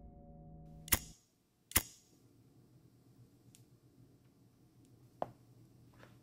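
A lighter being flicked: two sharp clicks about a second apart, the second the loudest, followed by a few faint clicks while it burns. Lingering music tones fade out just before the first click.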